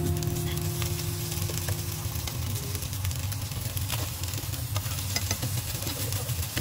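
Chicken, tofu and hijiki meatballs sizzling in hot oil in a nonstick frying pan as they are flipped with a turner, with occasional small pops and clicks.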